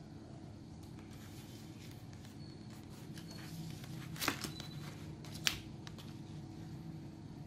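Faint handling noise over a low steady hum, with two sharp clicks, the first about four seconds in and the second a second later.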